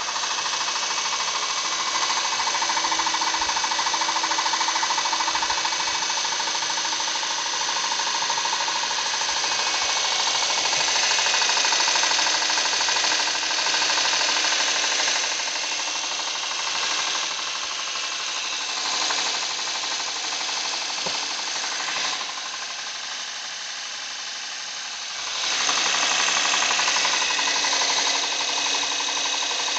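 Honda Pilot's V6 engine running with a fast, continuous metallic knocking that the owner takes for camshaft knock. It drops in loudness for a stretch past the middle, then comes back up.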